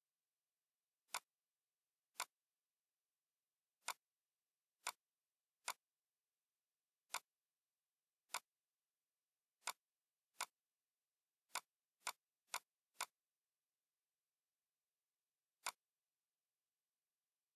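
Computer mouse clicking: single sharp clicks at irregular intervals, about fourteen in all, with a quick run of four close together past the middle and one more near the end, each press starting a pen stroke with Blender's annotate tool.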